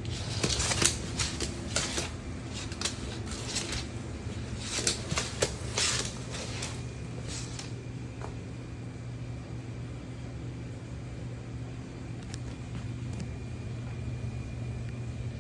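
An iguana giving a series of short, breathy hisses, about eight puffs of air over the first seven seconds, then stopping, over the steady hum of a fan.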